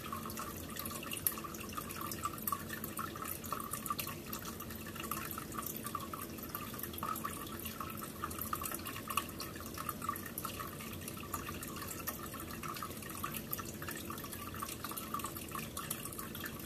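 Aquarium water trickling steadily, with a fine patter of small drips and splashes.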